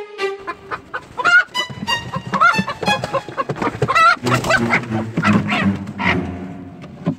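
Chickens squawking and clucking in a run of short, excited calls, over background music.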